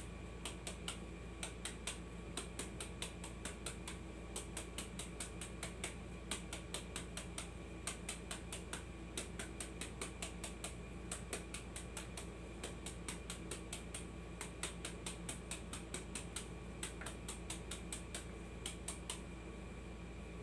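A kitchen knife slicing raw bamboo shoot held in the hand: quick, crisp cuts at about three to four a second as thin slices are shaved off for fermenting.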